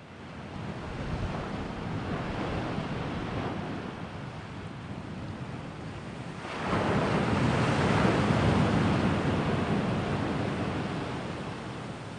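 Sea waves breaking and washing on the shore. One wash swells in over the first second and eases, then a bigger wave breaks about six and a half seconds in and slowly draws back.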